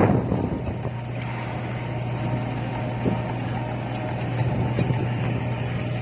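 Steady low drone of a ship's engine, mixed with wind on the microphone and the rush of rough sea water, with a louder surge of noise at the very start.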